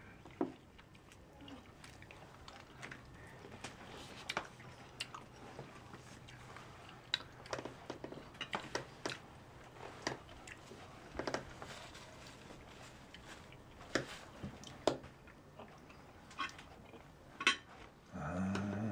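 Quiet meal-table sounds: scattered small clicks and knocks of spoons and plates, with chewing. Near the end a louder low pitched sound begins.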